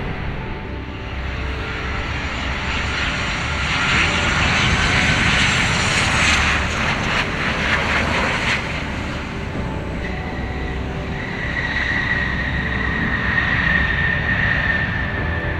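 Boeing 737-800 jet airliner landing, its CFM56 engines passing close. A rush of engine noise swells to its loudest in the middle, then gives way to a steady high whine that slowly falls in pitch.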